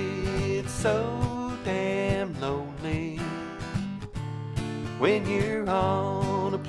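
A man singing held notes that slide between pitches, accompanied by an acoustic guitar.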